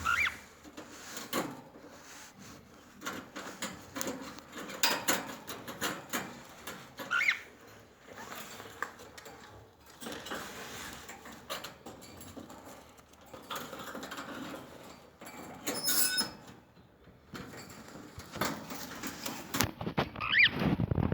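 Pet cockatiels giving a few short chirps several seconds apart, among light tapping and scratching sounds.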